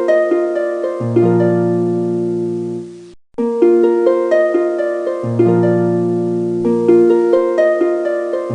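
Intro music: a melody of plucked, harp-like notes over held bass notes, which cuts out briefly about three seconds in and starts again.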